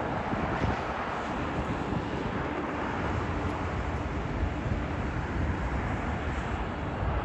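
Steady roar of freeway traffic mixed with jet aircraft engine noise.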